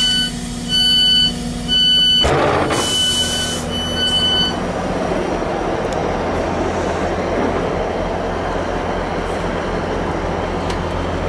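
Door warning beeps of a Northern Class 158 diesel multiple unit sound on and off for about four seconds, with a burst of air hiss in the middle, as the doors operate at the station stop. The train's steady diesel hum and rumble runs underneath.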